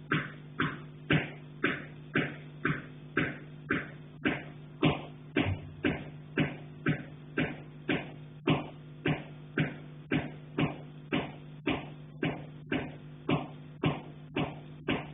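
Repeated knocking on a pipe from the attic above, carried down the pipe: even knocks about two a second, each ringing briefly, over a steady low hum.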